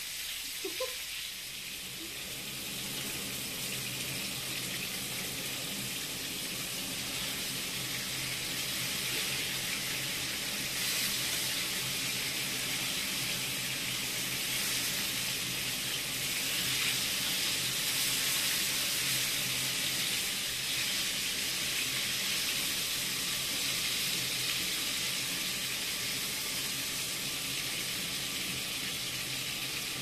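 Meat patties sizzling in hot oil in a frying pan, a steady, even hiss, with a faint low hum underneath.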